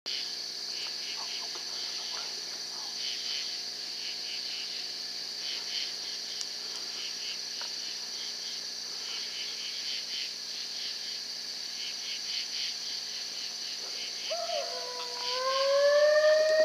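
Steady night chorus of crickets and other insects, a high continuous trill with rapid pulsing. Near the end a louder, drawn-out howl-like call sets in and rises in pitch.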